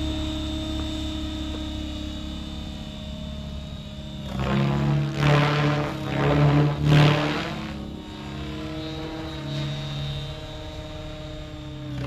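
Electric Align T-Rex 700X radio-controlled helicopter in flight, its main rotor at about 2000 rpm headspeed: a steady rotor drone with a high motor whine. From about four seconds in, several loud rotor whooshes swell and fall over three seconds as it is flown hard, then it settles back to the steady drone.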